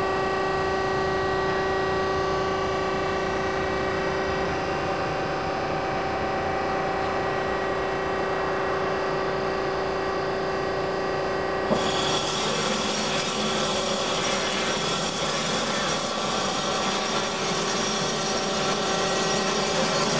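Hyd-Mech S23-A automatic horizontal bandsaw running under power: a steady machine hum with several held tones. About twelve seconds in there is a click, and a harsh, hissing saw sound joins as the saw head comes down on the bar stock.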